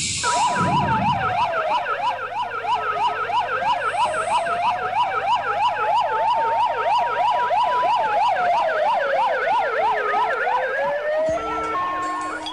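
Several emergency sirens sounding at once: a fast yelping siren sweeping up and down several times a second over a slower wail that falls, rises and falls again. About a second before the end it changes to stepped alternating tones. A brief whoosh opens it.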